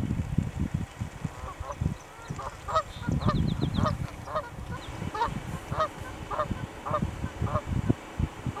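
Geese honking over and over, about two short calls a second, with a low rumbling noise underneath.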